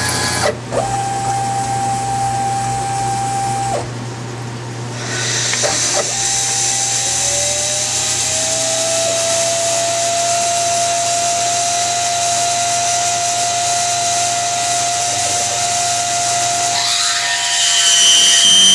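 CNC mini milling machine running an automatic drilling cycle. A steady whine in the first few seconds is followed by a spindle motor winding up to a steady whine over a hiss of mist coolant. Near the end the sound grows louder and higher-pitched as the drill works the aluminium part.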